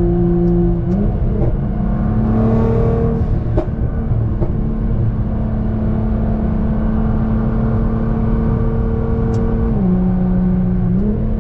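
Cabin sound of a tuned Nissan GT-R's twin-turbo V6 cruising at highway speed: a steady engine drone over road rumble. The drone's pitch steps up slightly about a second in and dips briefly near the end.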